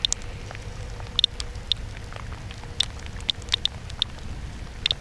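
Radiation Alert Inspector Geiger counter chirping at random intervals, one short high click for each detected count, about two a second, over a low rumble. The irregular spacing is the random arrival of radiation counts.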